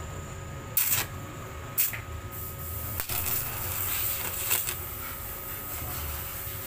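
TIG welding arc on a motorcycle engine crankcase with aluminium alloy filler rod: two short bursts about a second apart as the arc is struck, then the arc hissing for about two and a half seconds before it is cut.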